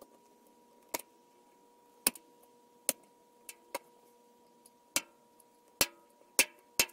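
Small metal screws clicking and tapping as they are picked up and set into the holes of an aluminium resin-vat frame: about ten sharp clicks at irregular intervals, over a faint steady hum.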